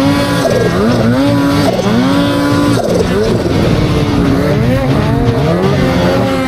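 Snowmobile engine revving up and down over and over, its pitch rising and falling about once a second as the throttle is worked.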